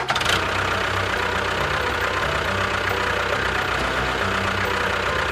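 A motor running steadily with a low, even chugging rattle that starts abruptly and holds at a constant speed.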